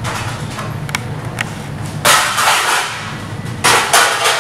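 Restaurant kitchen noise: a steady low hum, two light clinks in the first second and a half, then two loud bursts of hissing, each about a second long.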